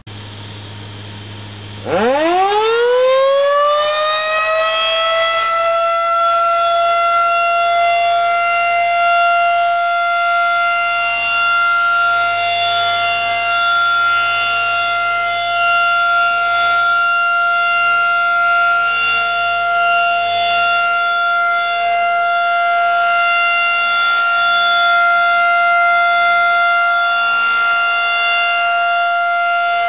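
Federal Signal 2001 DC tornado siren sounding its monthly test. A low hum comes first, then about two seconds in the siren winds up, climbing fast in pitch, and settles into one loud, steady wail that holds without a break.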